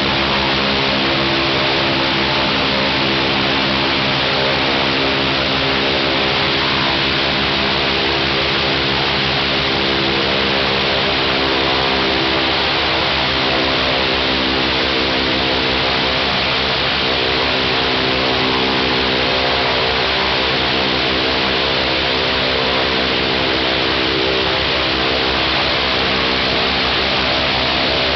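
Shvetsov ASh-82T 14-cylinder twin-row radial engine of an Ilyushin Il-14T running steadily with its propeller turning, a loud, even drone that holds the same pitch throughout.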